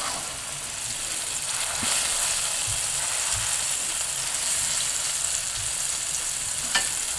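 Flour-dusted cube steaks sizzling steadily as they brown in oil in a stainless steel skillet. A few light knocks come as a wooden spatula moves them.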